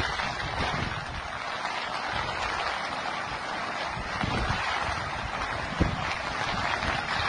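Floodwater of a swollen river rushing in a steady, noisy rush, with wind buffeting the microphone in irregular gusts.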